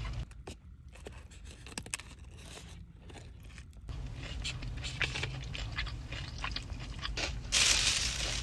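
A person eating: bites and chewing with small crunches, over a steady low rumble. A louder, rustling burst comes near the end.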